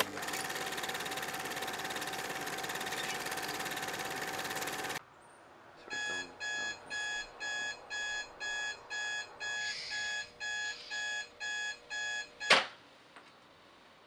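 A steady static-like hiss with a faint tone cuts off suddenly about five seconds in. Then a digital alarm clock beeps about twice a second, a dozen times over, until one sharp knock ends the beeping.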